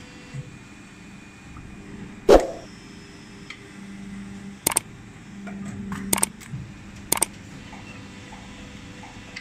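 Plastic injection moulding machine opening its mould, a loud clunk about two seconds in as the mould halves part. Three pairs of sharp metallic clicks follow as the cycle goes on. A low machine hum swells and fades between them.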